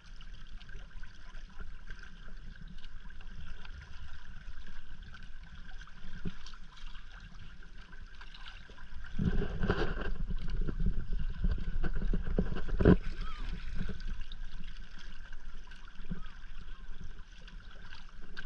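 Water rushing and lapping along the hull of a Hobie sailing kayak under way, with wind on the microphone. A louder gust of rushing noise runs from about nine to fourteen seconds in, with a sharp slap or knock near its end.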